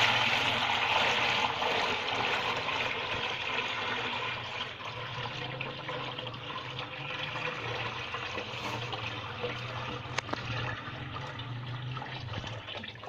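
Liquid herbal extract poured in a steady stream from one vessel into another, the flow loudest at first and slowly thinning: the clear liquid being decanted off its settled sediment. A steady low hum runs underneath, and a single click comes about ten seconds in.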